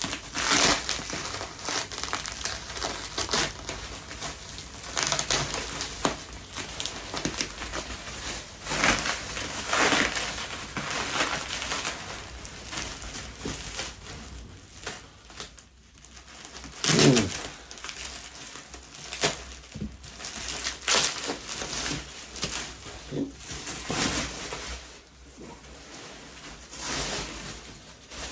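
Bubble wrap and plastic packing being pulled off and crumpled by hand: irregular crinkling and rustling with short crackles, and one louder, lower rub about two-thirds of the way through.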